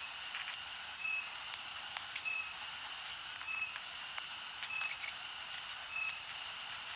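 Faint steady hiss with a short high beep about every second and a few faint ticks.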